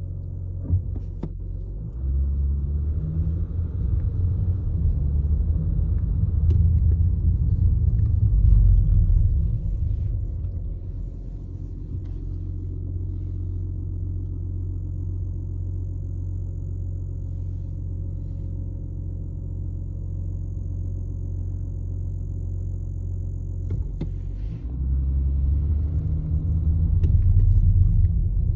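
Interior of an Audi A7 50 TDI on the move: a low engine and road rumble that swells twice, with scattered sharp clicks of a rattle somewhere in the cabin trim.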